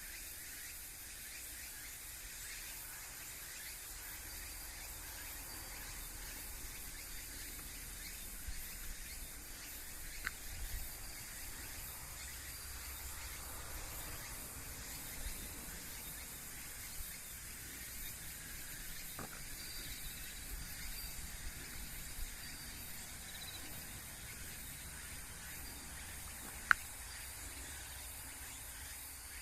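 Quiet countryside ambience: a steady high hiss of insects with a low rumble underneath, a few faint ticks, and one sharp click near the end.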